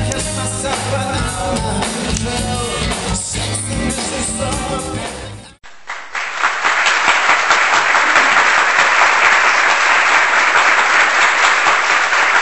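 A pop song with singing over a repeating bass beat cuts off suddenly about halfway through, and studio audience applause follows to the end.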